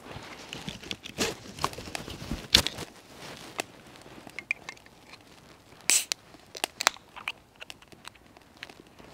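A drink can being handled and its pull tab opened, with a short, sharp crack about six seconds in, amid scattered clicks and taps and one louder thump about two and a half seconds in. Small crackles come from a wood fire burning in a hobo stove.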